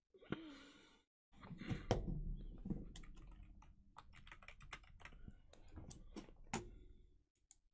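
Typing on a computer keyboard: a quick run of keystrokes entering a password, ending about seven seconds in.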